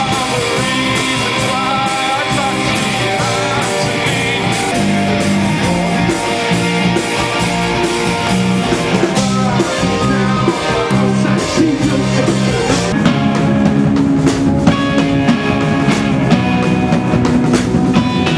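A rock band playing live and loud: electric guitar, a bass line stepping between notes, and a drum kit, in a dance-punk style.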